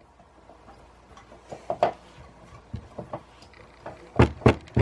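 Light clicks and taps of small metal bandsaw parts being handled on a workbench, with two sharper knocks near the end.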